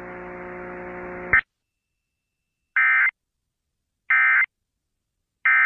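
A low buzzing hum stops with a click, then the Emergency Alert System's End Of Message code is sent: three short, shrill digital data squawks, about a second and a half apart, marking the end of the alert.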